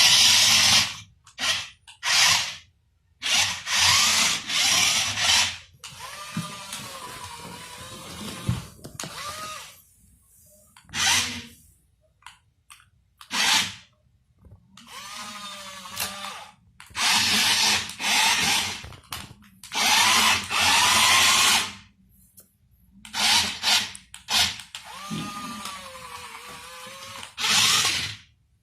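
Small electric motor and gears of a toy remote-control car whirring in repeated short bursts of a second or two, with pauses between, the pitch rising and falling within some bursts.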